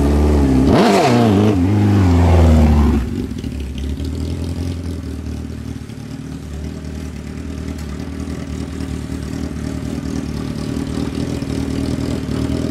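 Sport motorcycle engine revving as the bike rides in, then dropping to a steady idle about three seconds in.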